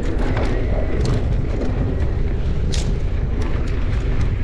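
Mountain bike riding fast down a sandy dirt singletrack: a steady rumble of wind on the microphone and tyres on the trail, with a few sharp clicks and rattles from the bike.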